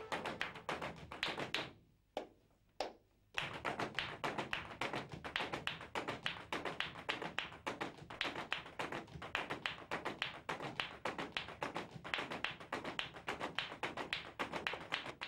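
A group of flamenco dancers stamping out rapid heel-and-toe footwork (zapateado) in heeled shoes on a hard tiled floor: a fast stream of sharp taps. It breaks off about two seconds in and starts again about a second later.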